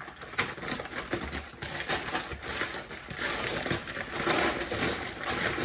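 Packaging being handled and opened: an irregular run of crinkling, rustling and scraping.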